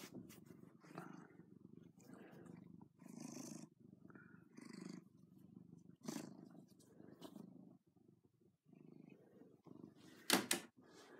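Domestic cat purring close up, the rumble coming in pulses of about a second with each breath. A brief loud knock sounds about ten seconds in.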